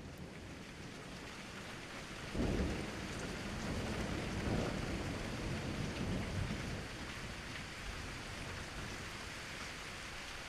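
Steady rain hissing, with a thunder rumble that breaks in suddenly a little over two seconds in, swells again a couple of seconds later and rolls on before slowly fading.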